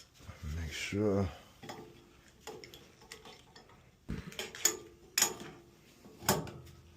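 Metal boiler parts and hand tools clinking and clanking, a few sharp knocks in the second half, as the old low water cutoff and its probe are handled.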